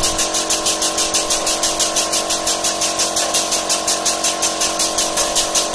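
A machine motor running steadily: a constant hum with a fast, even pulsing beat of about four or five a second.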